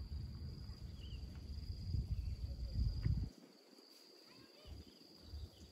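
A steady high-pitched insect drone, with a few faint chirps over it. A low rumble underneath cuts off about three seconds in.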